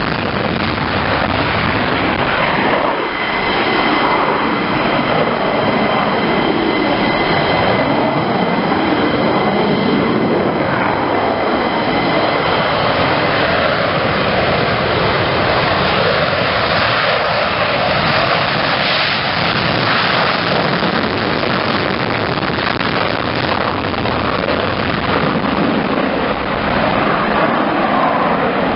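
F-15 fighter jet taking off on afterburner: loud, steady jet noise, with a high whine over it during the first half.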